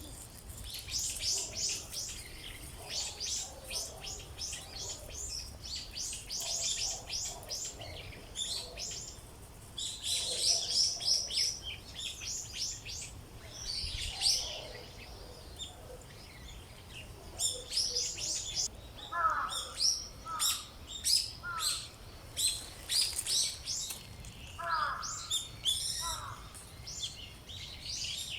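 Small birds chirping, a busy run of short, high chirps that comes and goes in clusters, with a few lower, downward-sliding calls about two-thirds of the way in.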